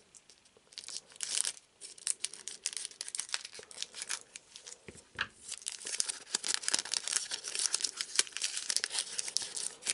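Foil trading-card booster pack wrapper crinkling and tearing as it is worked open by hand after an incomplete scissor cut: a dense, irregular run of small crackles.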